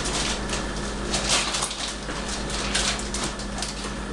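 A whisk stirring and scraping in a bowl of beer batter, making an irregular scratchy clatter, over a steady low hum.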